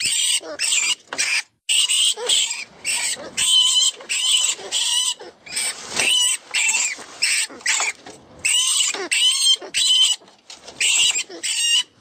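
FoxPro 'Vermin Pest Control' rat distress call: a rodent's high-pitched squeals in quick short bursts, about two to three a second, broken by brief pauses. It is a predator call meant to lure foxes.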